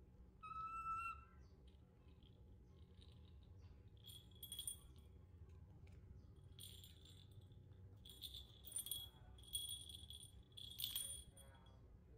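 A small bell inside a perforated plastic toy ball jingles in short bursts, five or so over the last two-thirds, as the ball is handled and rolled. Near the start there is a short high-pitched tone lasting under a second.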